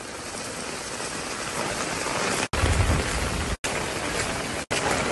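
Steady rain falling and splashing on open stone paving, an even hiss. The sound cuts out abruptly and resumes three times in the second half.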